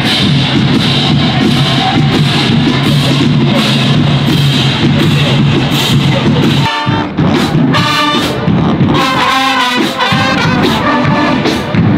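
Marching band playing: drums keep a steady beat of about three strokes a second under a held low brass chord, and from about seven seconds in the horns take up a melody.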